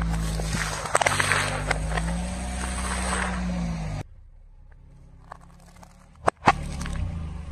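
Car tyre rolling over and crushing foam bowls of small crunchy coloured puffs, with crackling crunches about a second in over the steady hum of the car's engine. After a sudden cut it goes quieter, then two sharp cracks a quarter-second apart, the louder one the loudest sound of all, as the tyre rolls onto a green mesh-wrapped object, with the engine running again.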